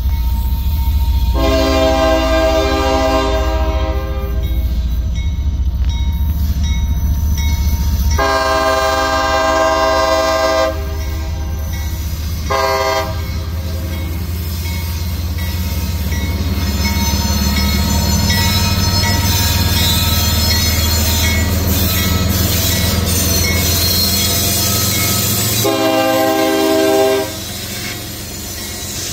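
Diesel freight locomotive's air horn sounding the grade-crossing signal: two long blasts, a short one, then a long one near the end. Under it runs the steady low rumble of the lead diesel locomotives hauling the train at a crawl. A high squeal of dragging wheels and brakes comes in around the middle, which the uploader takes for brakes left on.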